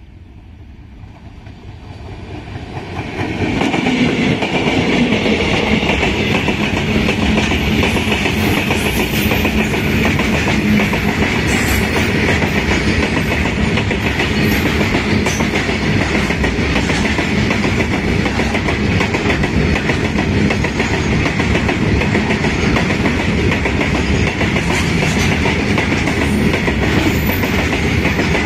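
A freight train of open-top steel wagons passing close by. The rumble rises over the first few seconds as the train arrives, then holds as a steady loud rumble and clatter of wheels on the rails.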